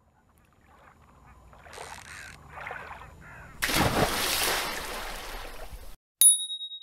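Cartoon sound effects: a few faint calls, then a loud rush of a crashing wave from about three and a half seconds in that cuts off abruptly at six seconds, followed by a single bright chime that rings on.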